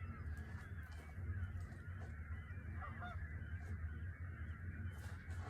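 A flock of geese honking, with many calls overlapping continuously, over a steady low rumble.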